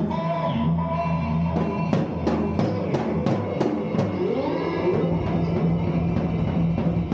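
Instrumental rock power trio jamming live: electric guitar holding and bending notes over bass and drums. About two seconds in comes a run of evenly spaced drum hits, roughly three a second, for about two seconds.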